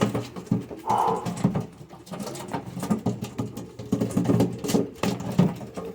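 A newly paired Spanish powder cock and hen pigeon scuffling: the cock beating the hen, a run of quick wing slaps and flutters mixed with low cooing.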